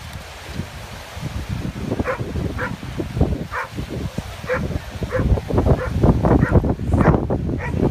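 A dog barking in short, repeated barks, about one a second from about two seconds in, over low wind buffeting on the microphone that grows stronger in the second half.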